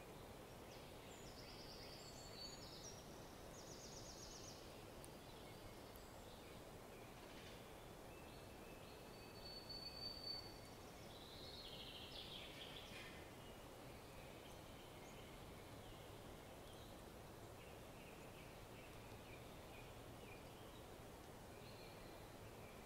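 Quiet outdoor background with a steady low hum and a few faint, distant bird calls now and then, the clearest about ten to thirteen seconds in.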